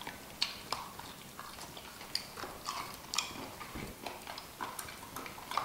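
Close-miked eating sounds: chewing, with irregular small clicks and cracks from handling seafood boil crab and shells.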